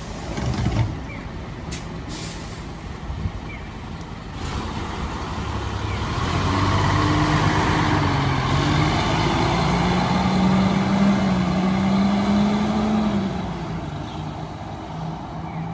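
Kagoshima Kotsu route bus closing its entrance door about a second in, with a short hiss of air, then its engine pulling away. The engine pitch climbs as the bus accelerates, then fades as it drives off.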